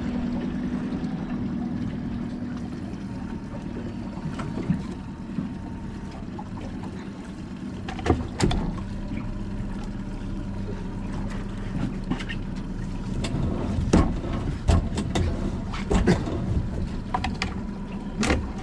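Honda outboard motor running at idle with a steady low hum, broken by scattered sharp knocks and clicks, the loudest about 8 and 14 seconds in.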